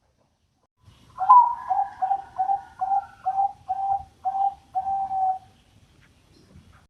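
Bangkok bird, a crossbred dove related to the spotted dove (derkuku), cooing: a run of about nine short coos, about two a second, ending on a longer note.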